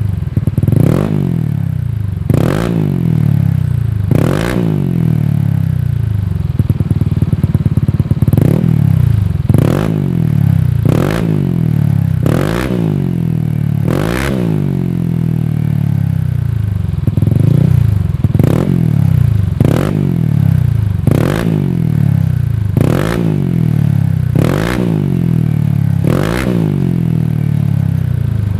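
Motorcycle engine with a Shijiro Racing aftermarket exhaust, idling and blipped over and over, about every one and a half seconds. Each rev rises sharply and drops quickly back to idle.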